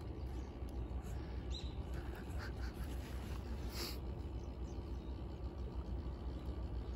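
Steady low background rumble with a few faint, brief high chirps, about one and a half seconds in and again a little before the four-second mark.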